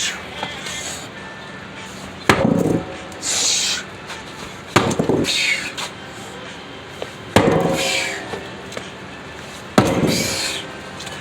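Four heavy hammer blows, one about every two and a half seconds, each a sharp crack followed by a brief clatter of broken material, as demolition goes on.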